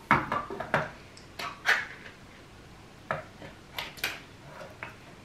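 A metal can of coconut cream clinking and knocking against a blender jar as it is emptied. Sharp taps come in uneven clusters, busiest in the first second.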